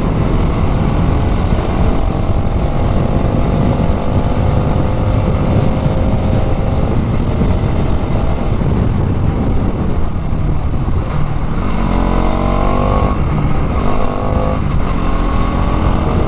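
Bajaj Pulsar NS200's single-cylinder engine pulling at speed under heavy wind rush, its pitch climbing slowly at first. In the last few seconds it revs up hard through the gears, with two quick upshifts that drop the pitch before it climbs again.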